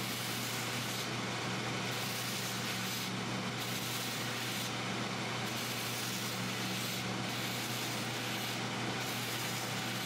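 Bench sanding drum running steadily while the bottom of a thermoplastic test socket is held against it, grinding down and roughing up the plastic so glue will bond to it. A steady whir with a low hum underneath.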